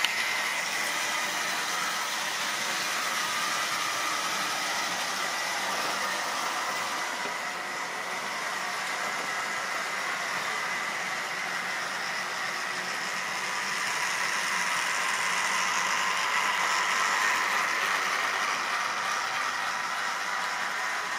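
Model train running on its track: a steady whine from the locomotive's electric motor over the rattle of the wagon wheels on the rails, swelling a little as the train passes closest.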